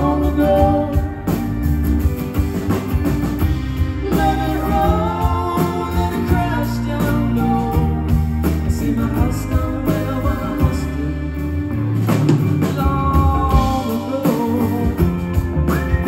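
Live indie rock band playing: a male lead vocal sung over acoustic and electric guitars, drums and keyboards.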